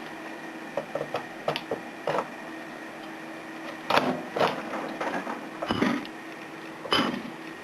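Irregular crackles and sharp pops from something burning inside a microwave oven, over the oven's steady hum; the loudest pops come about four, six and seven seconds in.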